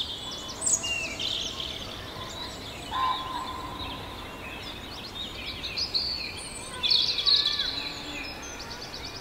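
Many small birds chirping and twittering over a steady background hiss, with the busiest bursts near the start and about seven seconds in.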